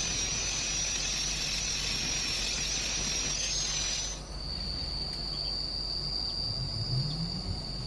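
Electric arc welding: a dense, steady hissing sizzle of the arc for about four seconds that cuts off suddenly as the arc is broken. A thin, steady high whine carries on afterwards.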